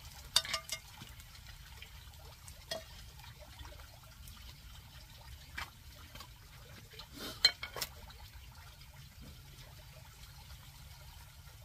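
Faint steady background hiss with a few scattered light clicks and knocks, the sharpest about seven and a half seconds in.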